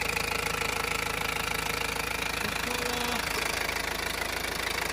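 Mazda CX-5's engine idling steadily, just after being reassembled and refilled with oil.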